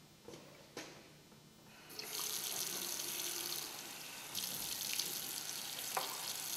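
Bathroom sink faucet turned on about two seconds in, then water running steadily into the basin as hands are washed under the stream. A couple of soft clicks come before the water starts.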